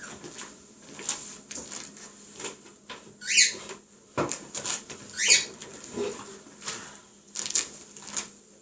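African grey parrot making sounds: scattered clicks and squeaks, with two short falling whistles, one a little over three seconds in and another about two seconds later.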